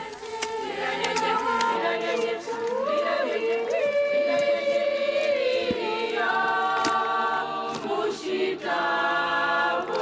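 A choir singing, the voices holding long notes and gliding between pitches.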